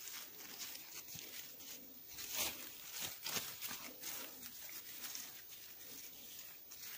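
Raspberry leaves and canes rustling and crackling as a hand reaches into the bush and picks berries, with irregular light crackles, the loudest about two and a half seconds in.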